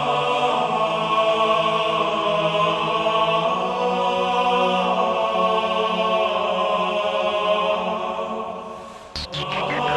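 Music with long held chords. It fades out near the end, then a few sharp clicks, and the music starts again.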